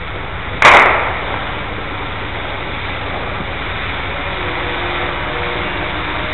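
A single loud, sharp bang about half a second in, dying away quickly, over steady background noise. Faint steady tones come in from about four seconds in.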